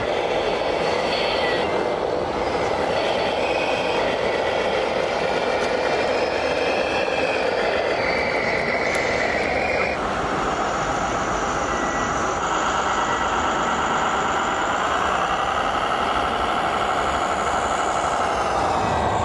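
Electric drive whine of radio-controlled model trucks, with pitch that rises and falls as they drive over a steady background noise. About halfway through a different whine takes over, sliding in pitch and dropping near the end.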